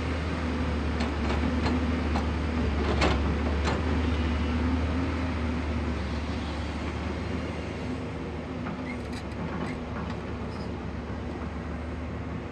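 JCB 215 excavator's diesel engine running steadily, with several sharp metallic clanks in the first few seconds and a couple more near the end.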